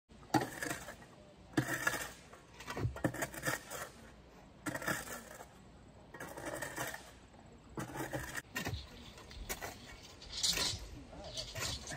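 Hand digging tools working gravelly dirt at a post hole: a shovel and a post-hole digger scraping and crunching into the soil, one stroke every second or two.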